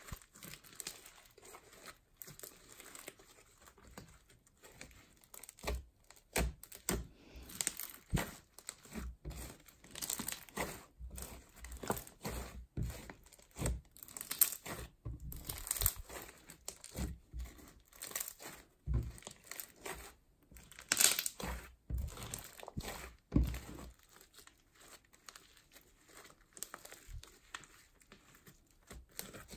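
Green slime being stretched, squeezed and kneaded by hand: irregular sticky crackles, pops and tearing sounds as it pulls apart and is pressed down.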